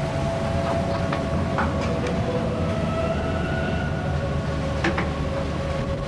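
Steady low rumble of a fishing vessel's machinery and hull working in heavy seas, with a faint steady whine over it and a few sharp knocks or creaks, one near two seconds and a louder one near five seconds.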